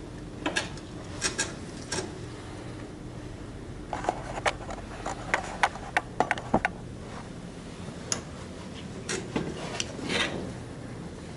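Scattered clicks, light knocks and rubbing from hand work with small hard objects, with a quick run of sharp clicks around the middle.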